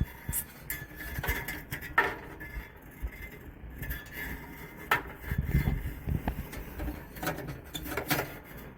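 Irregular light metallic clicks and taps with rubbing and handling rumble, from work on a gas furnace's sheet-metal heat exchanger during a camera inspection.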